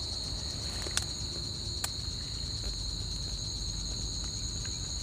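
Steady chorus of insects, a continuous high trilling at two pitches, with two short clicks about one and two seconds in.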